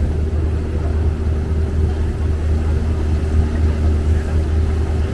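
Boat engine running steadily under way: a constant low drone with a fainter steady hum above it.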